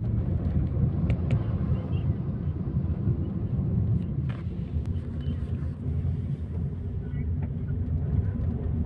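Steady low rumble of a car being driven, engine and road noise heard from inside the cabin, with a couple of faint clicks about a second in and again about four seconds in.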